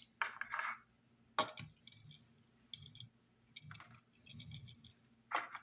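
A die-cast toy car with rubber tires is handled and rolled on a wooden tabletop: scattered light clicks and clinks, a couple of short scrapes, and a faint low rumble from the wheels rolling.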